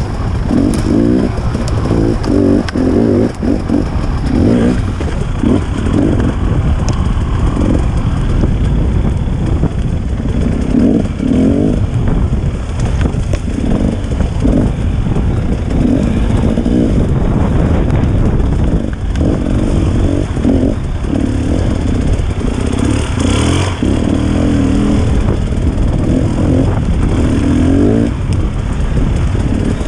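KTM 300 XC two-stroke dirt bike engine revving up and down as it is ridden over rough ground, with frequent knocks and rattles.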